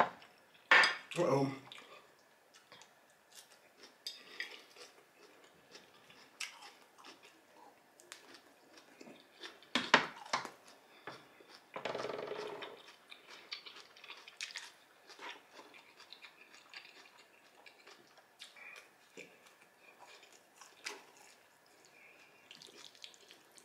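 Close-up eating sounds: chewing of baked spaghetti and small clicks of a metal fork against a glass baking dish, with a couple of short hums about a second in and around twelve seconds.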